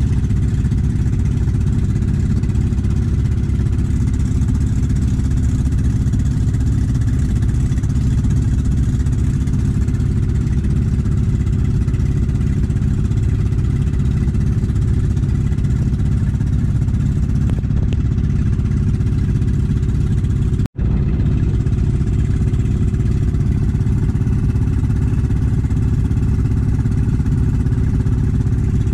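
Motorized outrigger boat's engine running steadily at cruising speed, heard from on board.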